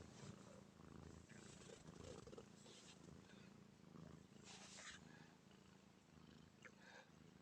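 A cat snoring softly in its sleep: a faint, low, purr-like rumble with a soft breath about every second and a half.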